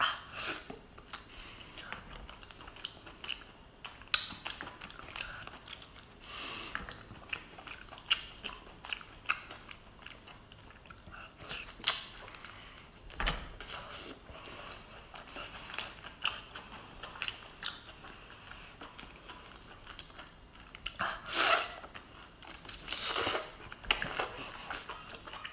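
Close-up mouth sounds of eating braised octopus: wet chewing, lip smacks and clicks. A few louder, longer slurps come near the end as tentacles are sucked into the mouth.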